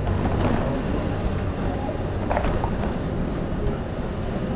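City street ambience: a steady low rumble of traffic with faint passing voices.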